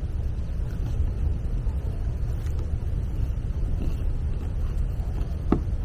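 Low, steady wind rumble on the microphone, with a single sharp click about five and a half seconds in.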